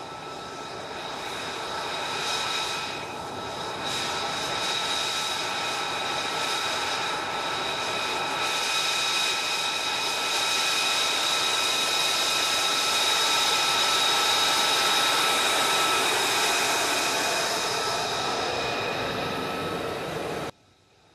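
F-35 Lightning II's Pratt & Whitney F135 jet engine at taxi power as the fighter rolls past, a loud rushing noise with several high steady whining tones, growing louder over the first few seconds. It stops abruptly near the end.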